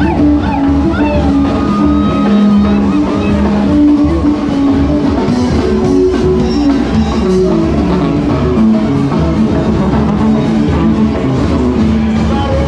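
Live band playing dance music, a sousaphone carrying a stepping bass line under guitar and drums.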